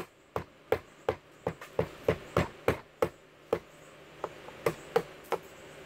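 Wood chisel driven into Douglas fir by rapid repeated blows, about three sharp knocks a second, stopping shortly before the end, as a relief bevel is chopped out.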